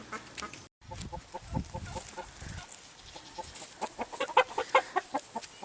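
Chickens clucking: a run of short, repeated clucks that grow louder and come faster about four seconds in. The sound cuts out completely for a moment under a second in.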